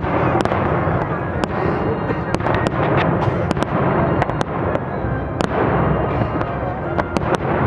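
Fireworks display: a dense, continuous rumble of bursts with many sharp, irregular crackling reports on top.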